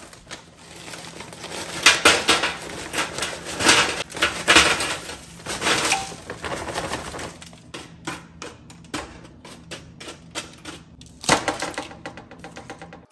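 Frozen mixed vegetables poured from a plastic bag onto a parchment-lined metal baking sheet, the hard frozen pieces clattering and rattling densely for several seconds. Then scattered single clicks as pieces settle, with one louder knock near the end.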